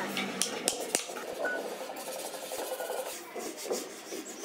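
Rubbing and scraping on wood, with a few sharp clicks in the first second.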